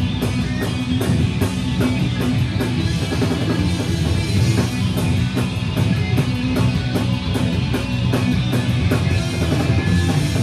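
Live punk band playing an instrumental passage: distorted electric guitar and bass over a fast, driving drum kit beat with steady cymbal hits.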